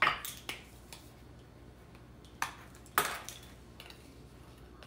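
A red plastic measuring spoon knocking against a glass mixing bowl and a seasoned-salt jar while salt is measured out: four sharp, short taps, with fainter ticks in between.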